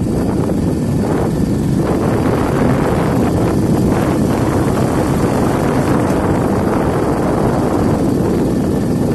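Wind rushing over the microphone of a moving vehicle, mixed with its travel noise: a loud, steady low rumble.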